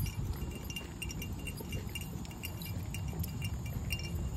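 Dog collar tags jingling in light, irregular tinkles as the dogs move and sniff, over a steady low rumble.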